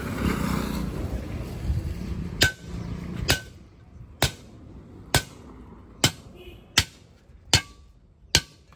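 Hammer blows on steel while a tractor-trolley tyre is being worked off its steel wheel rim: eight sharp strikes with a short metallic ring, a little under one a second, starting about two and a half seconds in after a rough handling noise.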